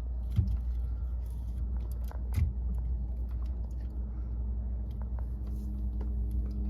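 Plastic clicks and knocks as a replacement combination switch assembly is slid onto a steering column: two sharper knocks, about half a second and two and a half seconds in, among lighter ticks, over a steady low rumble.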